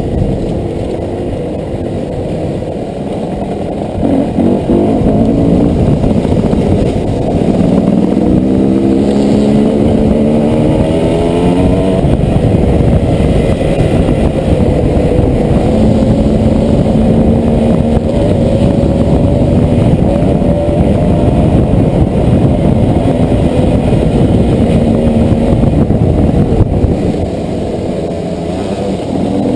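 Dirt bike engine heard from a helmet-mounted camera while riding: it revs up through rising pitches about eight to twelve seconds in, then runs at a fairly steady pitch, and eases off briefly near the end.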